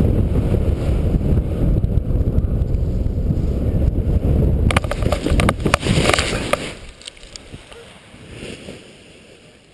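Airflow rushing over the microphone during a paraglider's final glide, then a few knocks and thumps about five seconds in as the pilot touches down and runs out the landing on snow. The wind noise drops away suddenly about seven seconds in as the pilot comes to a stop.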